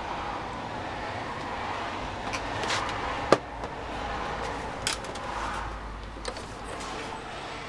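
Steady workshop background noise with a few light clicks and knocks from hands handling a starter solenoid clamped in a metal bench vise, the sharpest about three seconds in.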